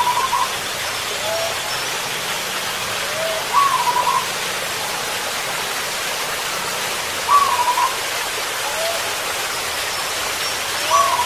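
Zebra doves cooing: a short, stuttering coo phrase repeats about every three to four seconds, each preceded by a fainter, lower coo. Underneath runs a steady rushing hiss.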